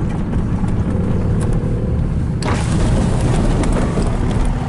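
Low, steady rumble of a car on the move, with a rushing hiss that comes in suddenly about halfway through.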